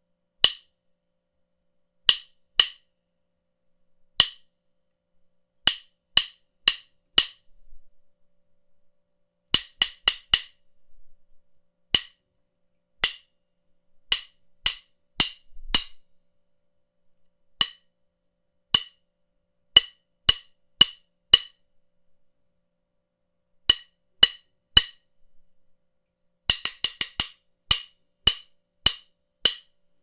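Two hardwood drumsticks struck together in sharp clacks. They come singly, in pairs and in short runs of three or four, with a quick flurry of strikes near the end.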